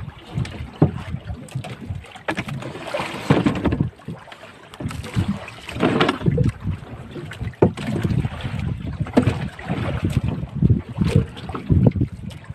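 Wind buffeting the microphone and water lapping against a small boat's hull, with irregular knocks and thuds from handling on board as a fish is hauled in on a handline.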